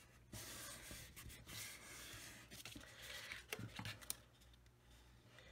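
Soft rustling and rubbing of paper and card stock as it is pressed down and handled by hand, with a few light ticks.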